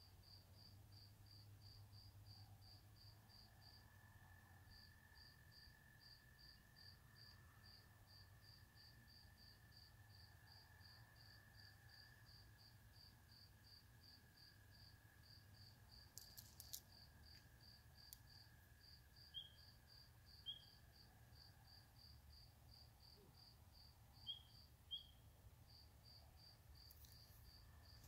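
Faint swamp chorus: a steady, high, evenly pulsed chirping about three times a second, with a few louder short rising peeps of spring peepers coming in two pairs in the second half.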